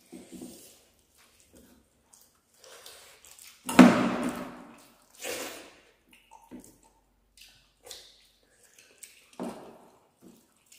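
Close-miked eating sounds of rice and curry eaten by hand: wet chewing and lip smacks, with a louder burst about four seconds in.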